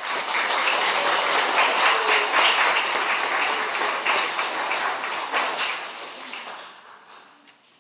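Audience applauding: a dense patter of many hands clapping that holds steady for several seconds, then fades out near the end.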